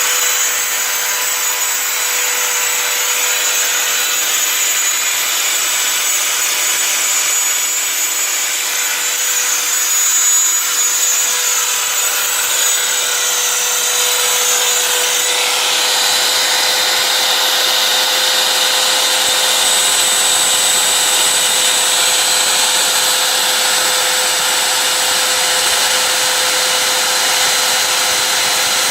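CNC router spindle whining steadily while its bit cuts through 16 mm MDF, a continuous loud cutting noise. The higher tones of the cut change about halfway through.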